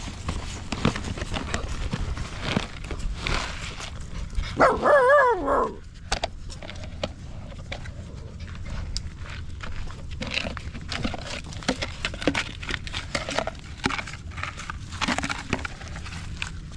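A puppy gives one loud, wavering cry about five seconds in, lasting about a second. Around it runs a steady patter of rustles and clicks from a backpack and a plastic bowl being handled.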